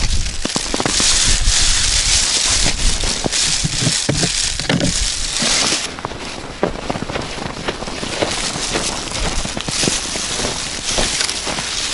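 Footsteps crunching through snow on lake ice, with a plastic bag rustling and a steady run of small crackles and knocks.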